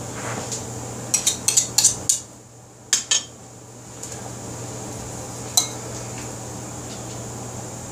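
Metal spoon clinking and scraping inside a steel soup can while the last of the condensed cream of mushroom soup is dug out. A quick run of clinks comes about a second in, two more near three seconds, and a single one past halfway.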